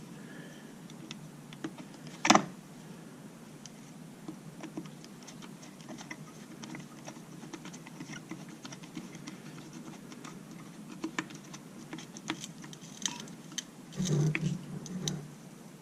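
Screwdriver tightening the small screws on an outboard's lower-unit water pump housing: scattered faint ticks and scrapes of metal on metal. A sharper click about two seconds in, and louder handling knocks near the end.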